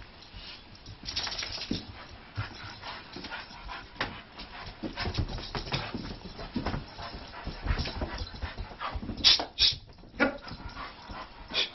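A dog whimpering amid scuffs and clicks of movement, with two short, sharp high sounds about nine and a half seconds in.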